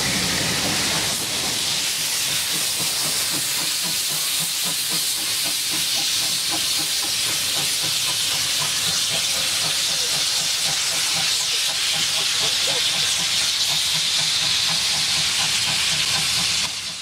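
A steam locomotive hissing steam loudly and steadily, over the low rumble and clatter of a train's running gear on the rails.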